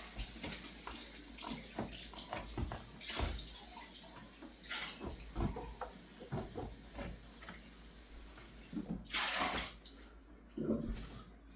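Old carpet being cut with a hook-blade utility knife and pulled up from the floor: scattered scraping, rustling and small knocks, with a louder rasping stretch about nine seconds in.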